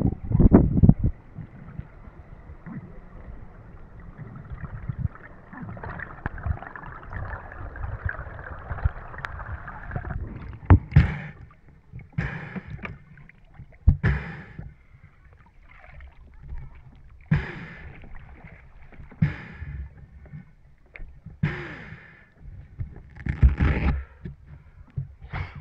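Muffled rush of water over an underwater action camera while freediving. After surfacing, a run of short, loud breaths or gasps about every one to two seconds as the freediver recovers.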